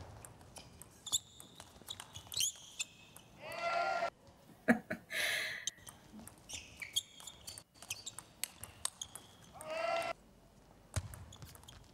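Table tennis ball clicking sharply off paddles and the table, a light irregular series of hits. A few brief pitched squeals, each about half a second long, stand out a little above the hits.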